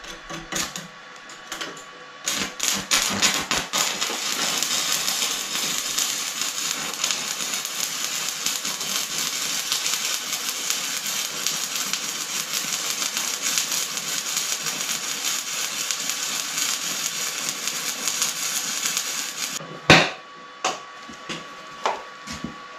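Electric arc welding: a few short sputters as the arc is struck, then a steady dense crackle of the arc for about seventeen seconds while a weld is laid along the second side of a bevelled steel joint, already tacked on the first. The arc stops abruptly, followed by one loud sharp knock and a few lighter taps.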